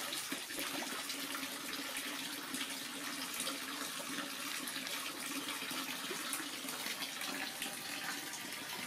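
A thin stream of water pouring steadily into a filled inflatable paddling pool, with lighter splashing from a monkey swimming in it.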